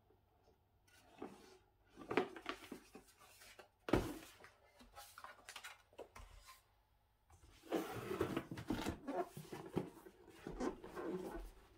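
Hands handling a computer speaker set and its packaging: irregular rustling, scraping and clicks, with a sharp knock about four seconds in and a busier run of rustling and light knocks near the end.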